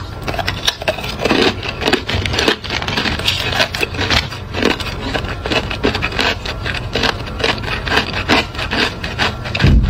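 Hard clear ice being crunched and chewed close to the microphone: a dense, continuous run of sharp cracks and crackles. A low thump comes just before the end.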